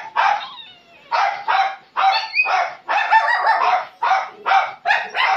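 Puppy barking: a fast run of short, high-pitched yappy barks, about two a second, with a brief pause about half a second in.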